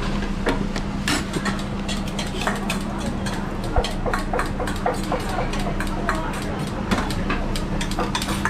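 Kitchen clatter at a food stall: frequent short clinks and knocks of metal bowls, utensils and dishes over a steady low hum.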